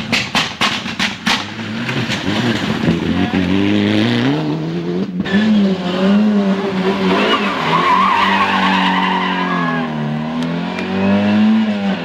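Rally car engines at full throttle, the note rising and falling through gear changes, with tyres squealing through a corner in the second half. A quick run of sharp cracks in the first second or so.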